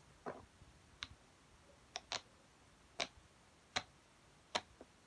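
Ice-cream-shaped fidget toy clicking as it is pressed by hand: about eight sharp clicks at an uneven pace, roughly one a second, two of them in quick pairs.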